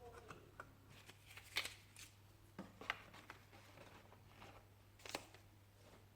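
A handful of short, sharp clicks and taps, spaced irregularly, over a low steady hum.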